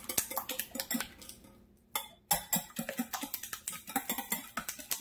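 Wire whisk beating eggs in a glass bowl: fast, even clicking and tapping of the wires against the bowl, which pauses briefly about one and a half seconds in and then starts again.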